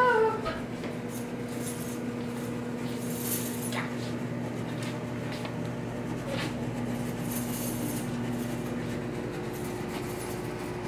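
A short, high, rising vocal yelp at the start, then a steady low hum under the room tone, with a few faint knocks.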